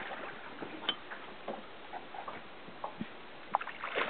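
Scattered light clicks and knocks, a handful spread irregularly, over a steady hiss.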